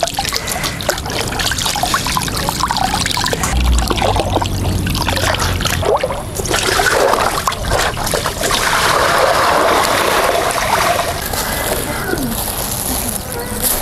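Water trickling and splashing as raw chicken pieces are rinsed by hand, with a denser spell of splashing a little past the middle.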